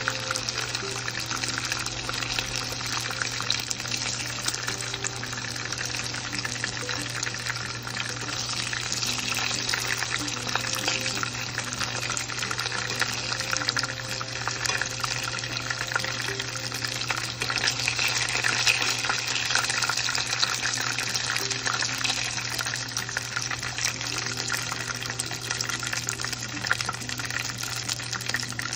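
Karaage chicken pieces frying in hot oil: a dense, steady crackling sizzle. Soft background music and a steady low hum run underneath.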